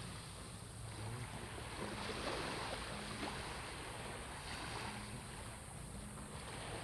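Small waves washing in at the water's edge, with wind on the microphone.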